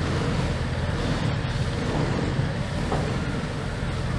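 A motor vehicle's engine running steadily: a low, even rumble with a hiss of road noise over it.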